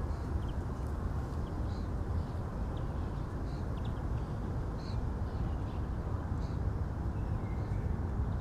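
Parrots giving short, harsh calls about once a second, with a brief whistled glide near the end. Underneath is a steady low rumble of distant road traffic.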